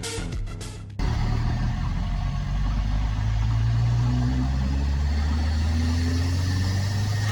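Background music for about a second, then a cut to the GAZ-24 Volga's swapped Nissan SR20DET turbocharged four-cylinder engine pulling the car along, running on a damaged turbocharger. Its pitch rises slowly for a couple of seconds, then holds steady.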